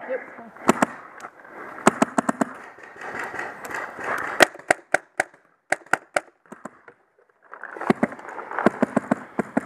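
Paintball markers firing in short, rapid strings of sharp shots, several bursts in a row. Near the end come running footsteps on wet gravel.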